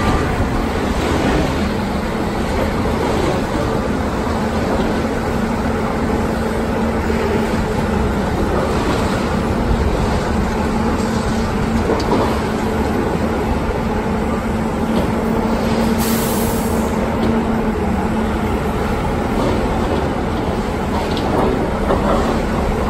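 Heavy diesel machinery running steadily: a dump truck and excavators. A steady hum runs through most of it and stops about three-quarters of the way through.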